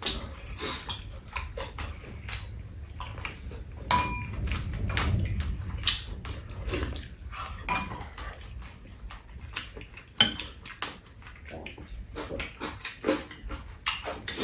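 Spoons and chopsticks clinking and scraping against a metal pan and bowls while eating fried rice, with many short sharp clicks, a few of them ringing briefly, along with eating and chewing sounds.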